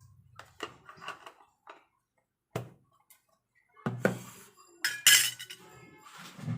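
Kitchen utensils and dishes clinking and knocking as ingredients are spooned into the chicken for marinating: a string of separate knocks, with the loudest clatter about five seconds in.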